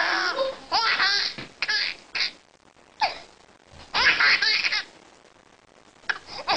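A baby laughing in repeated high-pitched bursts, with short pauses between them and a longer break of about a second near the end.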